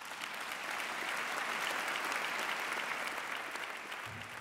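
Audience applauding, swelling over the first two seconds and then slowly easing off.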